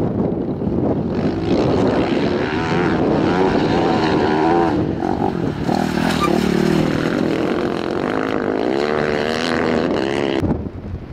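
Off-road racing engine running hard at speed, its pitch rising and falling repeatedly as the throttle is worked through the gears. The engine sound cuts off suddenly near the end.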